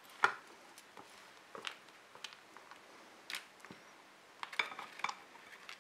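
Silicone spatula stirring and folding a thick white foamy slime mixture in a glass bowl: faint squishing with scattered soft clicks and taps of the spatula against the glass. There is a sharper one just after the start and a small cluster near the end.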